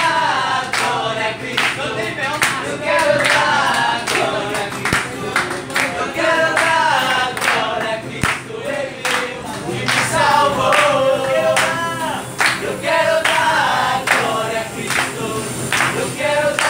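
A group of voices singing a Christmas carol together to an acoustic guitar, with hand claps keeping the beat.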